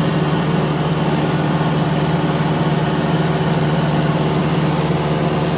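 Cessna 172S's Lycoming IO-360 four-cylinder engine and propeller running at a steady, even hum.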